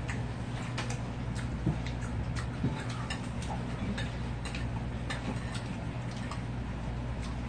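Light, irregular clicks of wooden chopsticks against ceramic plates and dishes, several a second, over a steady low hum.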